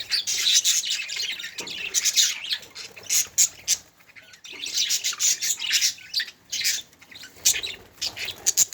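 Budgerigars chirping and chattering in quick runs of calls, with a brief lull about four seconds in.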